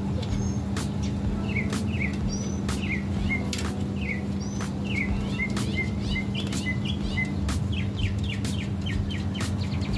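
Small bird chirping: a run of short, quick, falling chirps that come faster in the middle, over a steady low hum.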